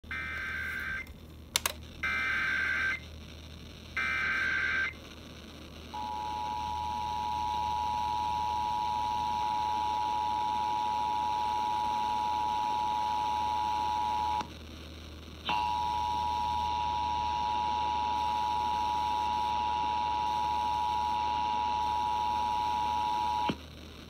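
Emergency Alert System test over FM radio. Three short bursts of warbling digital data tones (the SAME header that starts an alert, here coding a Required Monthly Test) open it. They are followed by the steady two-tone EAS attention signal, which runs about eight seconds, breaks off for a second, and sounds again for about eight more.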